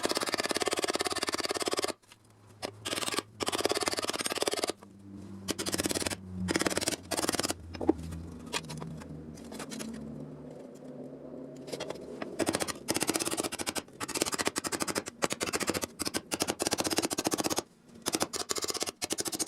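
Sheet steel being cut in runs of rapid, dense clicking a second or two long, stopping and starting; a quieter stretch in the middle carries a low steady hum.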